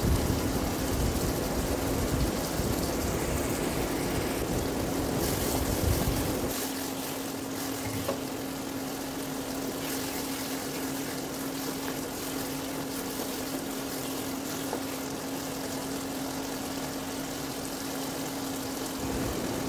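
Chopped tomatoes simmering and bubbling in a nonstick pan, with a wooden spatula stirring through them partway, over a steady low hum. Extra low rumble in the first six seconds.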